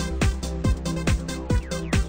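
Electronic dance music with a steady four-on-the-floor kick drum, about two beats a second, over sustained synth tones.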